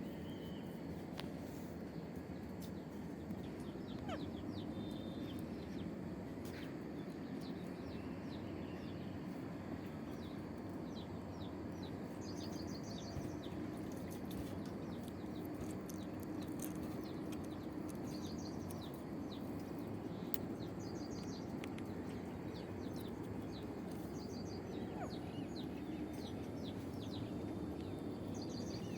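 Steady low outdoor background noise with a few short, high bird chirps now and then, some in quick pairs.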